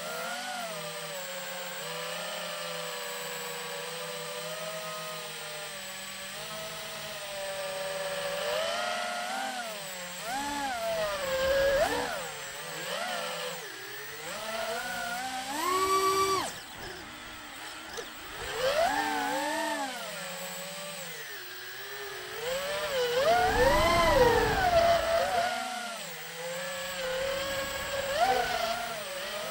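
Apex FPV quadcopter's brushless motors and propellers whining in flight. The pitch holds fairly steady at first, then swoops up and down with the throttle in repeated bursts. The loudest, highest climb comes a little before the end.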